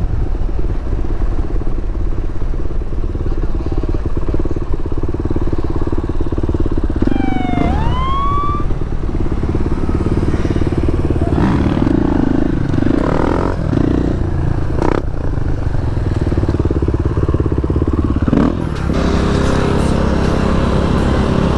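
KTM 500 EXC-F's single-cylinder four-stroke engine running at steady revs while the bike is held up in a wheelie. A brief rising whistle-like tone sounds about halfway through, and the engine note changes near the end.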